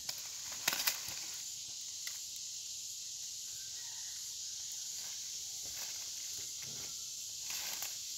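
Steady high-pitched insect chorus, with a few short knocks about a second in.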